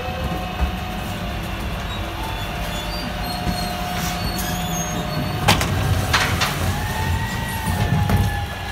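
A rear-loading garbage truck running with a steady hydraulic whine. A few sharp metal clanks a little past halfway, as a wheelie bin is hooked onto the bin lifter. Near the end the whine shifts in pitch as the lift raises the bin.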